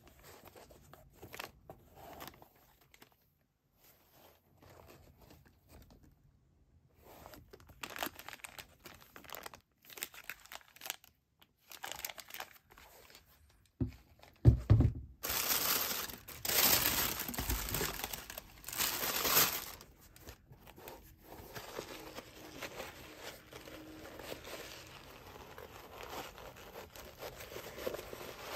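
Clear plastic shoe wrap and packing paper crinkling and rustling as a sneaker is handled and lifted out of its box. Soft scattered rustles at first, then a thump about halfway, followed by several seconds of loud, dense crinkling that eases to quieter rustling near the end.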